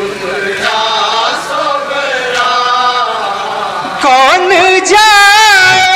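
Men chanting a nauha, an Urdu mourning lament, in unison without instruments. About four seconds in, one male voice rises louder above the group, holding long notes with a wavering pitch.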